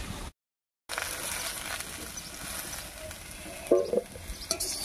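Oil sizzling faintly in a wok as fried jackfruit and potato pieces are lifted out, with a short scrape of the spatula against the pan about three and a half seconds in. The sound drops out for about half a second near the start.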